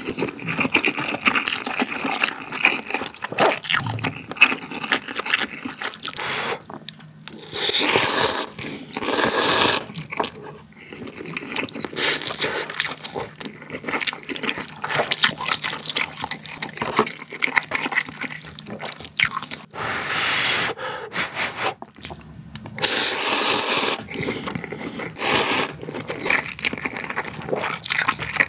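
Close-miked eating of instant cup ramen: slurping noodles and wet broth sounds, with chewing in between. The loudest, longest slurps come about eight to ten seconds in and again around twenty-three to twenty-six seconds in.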